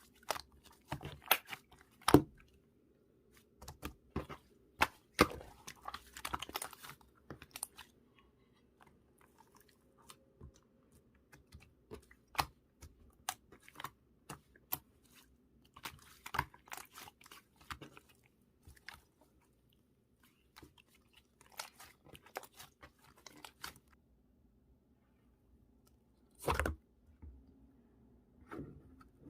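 Slime being squished and poked by hand, making irregular sharp clicks and crackling pops, with a louder, longer squish near the end.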